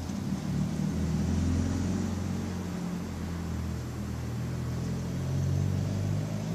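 Domestic cat purring close to the microphone: a steady low rumble.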